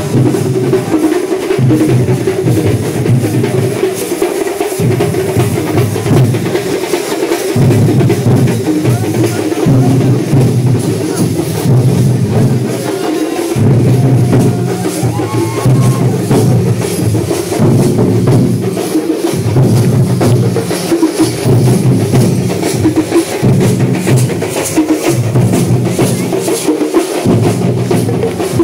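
Festival drum troupe playing loud, fast percussion, the deep drum strokes coming in surges that break off and start again every second or two.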